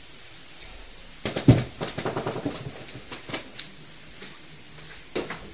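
Knocking in a small room: a heavy thump a little over a second in, followed by a run of quicker, lighter knocks and clatter, and one more sharp knock near the end.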